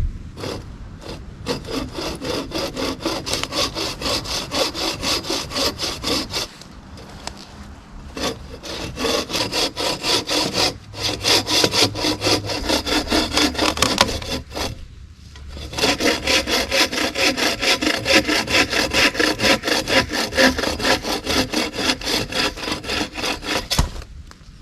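Hand saw cutting through wood in quick, even strokes, about three a second. It runs in three bouts, with short pauses about a quarter of the way in and again just past halfway.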